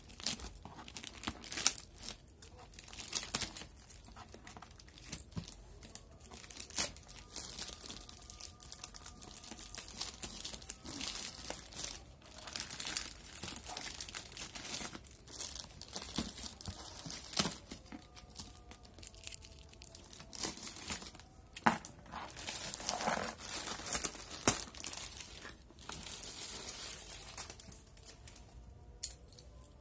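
Plastic courier mailer bag being torn and pulled open by hand, crinkling and ripping in irregular bursts, with a few sharp knocks as the cardboard shoe box inside is handled.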